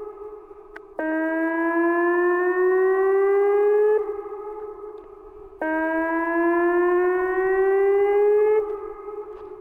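Outdoor emergency warning siren sounding for a test: one steady tone with its pitch creeping slightly upward. It comes on loud for about three seconds, fades away, then swells loud again for another three seconds before fading near the end.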